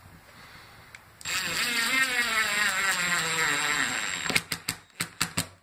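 Cordless driver running a screw through a hinge into wood, its motor whine wavering as it works under load for about three seconds. It ends in a handful of short bursts as the screw is seated.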